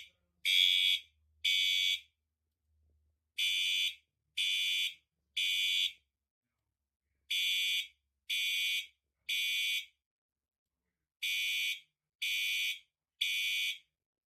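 Cerberus Pyrotronics MTL-S17-F (FCI HE8F) fire alarm horn sounding temporal code 3, the standard evacuation signal: three short, buzzy blasts, a pause, then three more, repeating about every four seconds on its notification appliance circuit.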